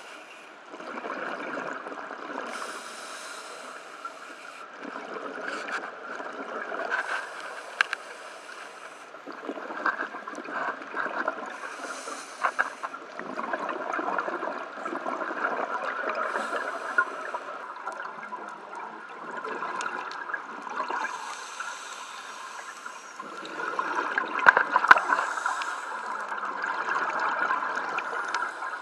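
Scuba diver breathing through a regulator underwater: a hiss about every four to five seconds on each inhale, with exhaled air bubbling and gurgling in between. The bubbling is loudest about three quarters of the way through.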